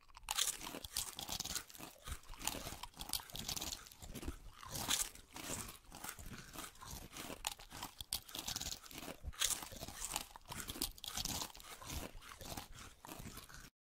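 Potato chips being crunched and chewed, with irregular crisp crackles throughout.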